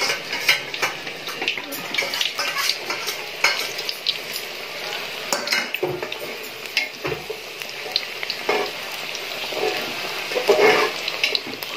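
Chicken pakoras deep-frying in hot oil, a dense crackling sizzle full of small pops, with a metal ladle stirring and knocking against a pot now and then.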